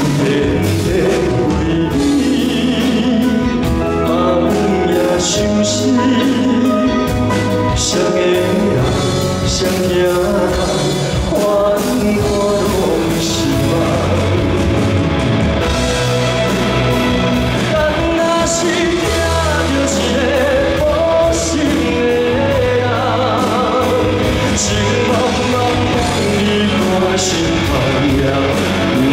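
Live band music accompanying a singer in a Taiwanese-language pop song, with a steady beat, loud and continuous.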